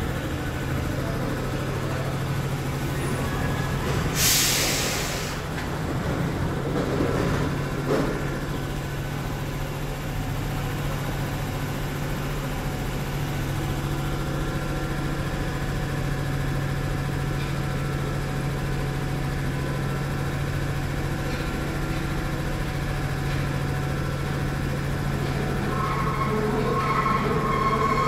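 A heavy vehicle running with a steady low hum. A short hiss of air comes about four seconds in, a knock about eight seconds in, and high squealing tones begin near the end.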